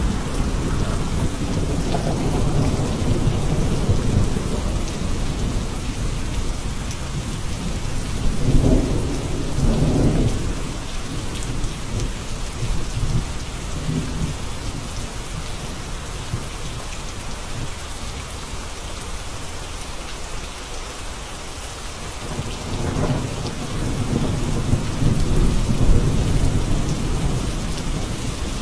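Steady rain with distant thunder rumbling, which swells near the start, about nine seconds in and again near the end.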